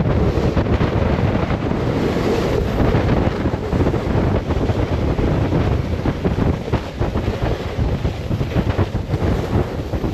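Heavy wind buffeting the microphone of a camera carried on a snowboard at around 53 mph, with shirts flapping and the board hissing over slushy snow.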